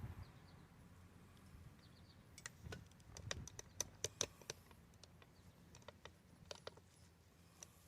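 Faint, scattered light clicks and taps of brake parts and bolts being handled during front brake reassembly. A cluster comes a few seconds in, and a few more come near the end.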